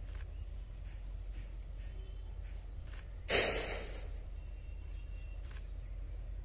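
Steady low outdoor rumble, with one short whoosh of noise a little past three seconds in and a few faint clicks.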